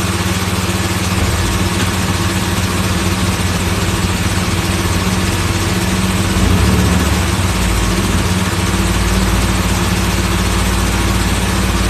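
Portable generator engine running steadily with an even hum. A deeper low rumble joins about six and a half seconds in and carries on.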